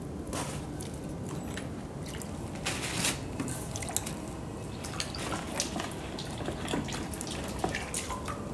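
Wet clay and water: the potter's hands and a metal rib squelching in slip and dripping and splashing in the water on the wheel, in short irregular splashes over a steady low hum.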